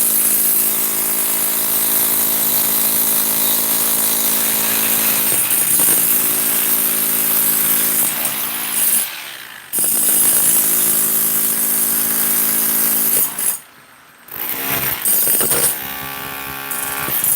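A handheld power tool running at a steady speed. It cuts out briefly twice, about nine and fourteen seconds in, then runs more quietly with a changed tone near the end.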